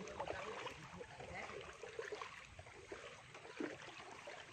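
Faint trickling and sloshing of water, with faint voices in the background.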